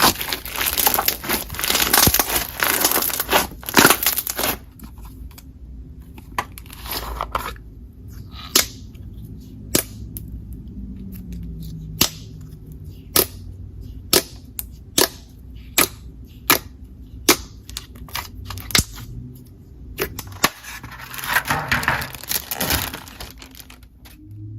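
Slime being squished and pressed with a dense crackling crunch for the first few seconds, then a series of separate sharp pops, about one a second, and another crackling stretch near the end.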